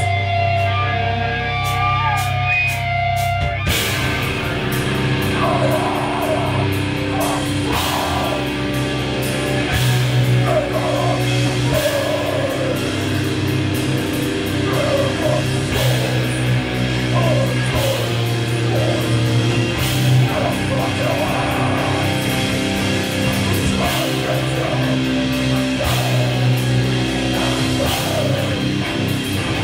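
Live rock band playing loud, heavy music: guitar and bass notes ring out on their own at first, then the drums come in about four seconds in and the vocalist sings over the full band.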